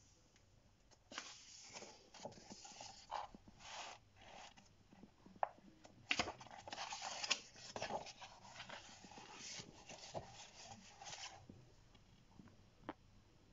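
Paper rustling in short bursts as a magazine's pages are turned and handled, with a few sharp snaps of paper.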